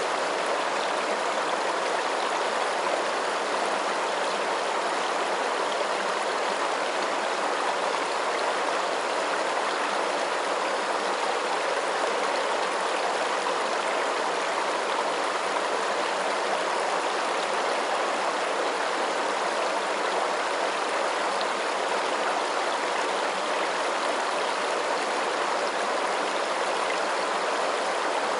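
Steady rushing of flowing water, like a stream, even and unchanging throughout.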